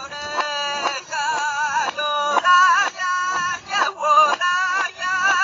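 High-pitched singing in a string of held notes with a strong, wavering vibrato, broken by short gaps.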